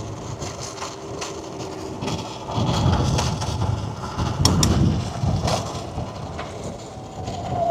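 Mini bike ridden over a dirt trail: its small engine runs under low rumbling surges, about two and a half and four and a half seconds in, with a few sharp knocks and rattles from the rough ground.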